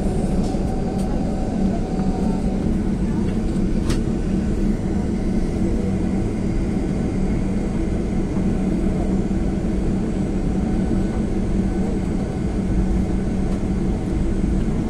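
Steady cabin noise of a jet airliner with its engines running while taxiing: an even drone with a low hum throughout. A single click about four seconds in.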